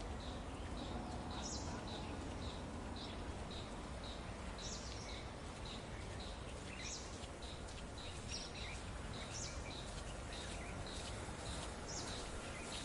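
Birds calling: one short high note repeated about twice a second, with other higher, falling calls now and then, over steady low background noise.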